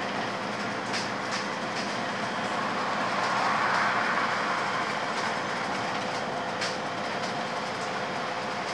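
Cabin noise of a MAN EcoCity gas-powered bus on the move: a steady ride and road hum with a faint constant whine, a few light rattles, and a gentle swell about three to five seconds in.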